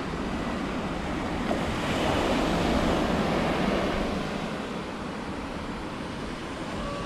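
Sea surf breaking and washing up a sandy beach, a steady rush of waves that swells about two seconds in and then eases off.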